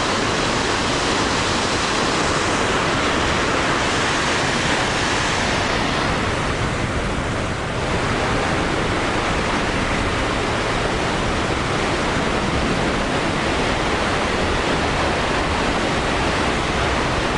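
Steady rush of Kegon Falls, a 97-metre waterfall, running at high flow after the previous day's rain.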